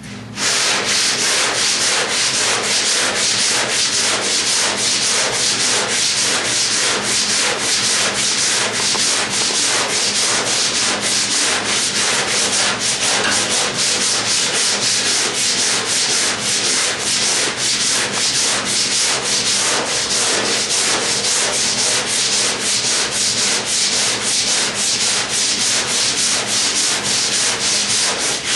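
Hand sanding of hardened body filler with a long sanding block: steady back-and-forth strokes, about two to three a second. The cured filler cuts cleanly, without loading the abrasive.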